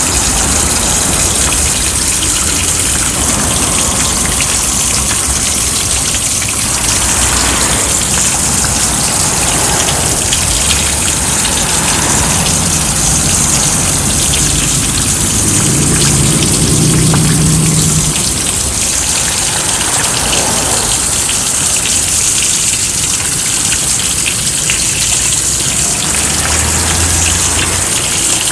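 Heavy rain pouring steadily, a dense, even hiss. In the middle a low engine hum from passing traffic swells and then fades.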